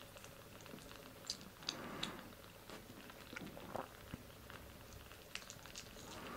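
Newborn Sphynx kittens suckling at their mother cat, making faint wet smacking and clicking sounds scattered throughout.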